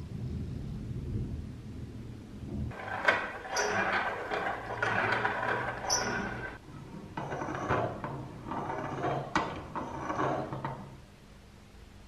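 Restored wall-mounted coffee grinder being worked by hand: its mechanism scrapes and clicks in two spells of about four seconds each.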